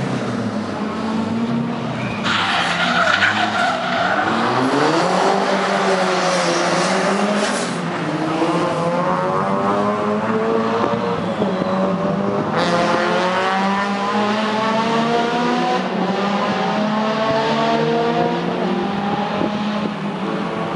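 Rally car engine revving hard and climbing through the revs again and again as it accelerates, with tyres skidding and squealing.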